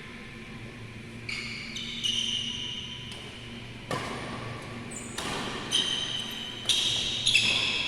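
Badminton rally on an indoor court: sports shoes squeak several times in short, high-pitched chirps as the players move, and a few sharp hits from rackets striking the shuttlecock come through. Low hall hum underneath.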